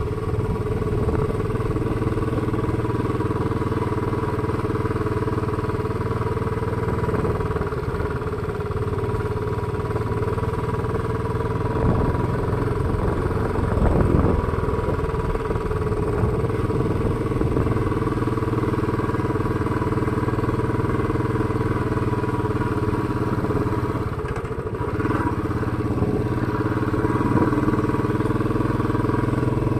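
Motorcycle engine running steadily while the bike is ridden along a road. The engine note shifts briefly about halfway through and again near the end.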